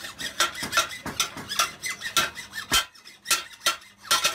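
Steel blade being scraped or filed on an anvil: quick, irregular rasping strokes of metal on metal, several a second, each with a short metallic ring.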